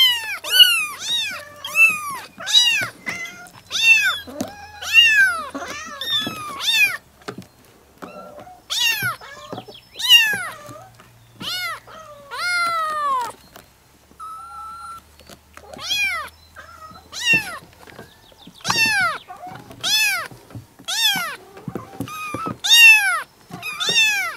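Cats meowing over and over: a long run of high-pitched meows, each rising then falling in pitch, about one a second with a couple of short pauses.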